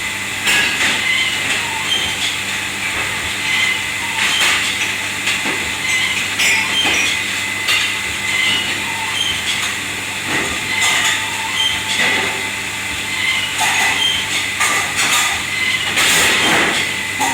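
Busy washing-up area of a commercial kitchen: a steady machine hum and hiss with irregular clinks and clatters of dishes and metal.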